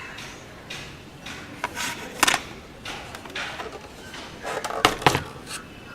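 Handling noise: short rustles and scrapes with a few sharp knocks, the loudest about two seconds in and a close pair near the end.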